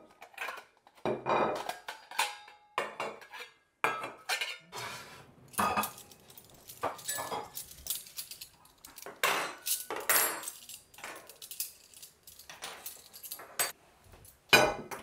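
Plates and cutlery clinking and clattering on a wooden table as it is set for a meal, in many irregular knocks and clinks.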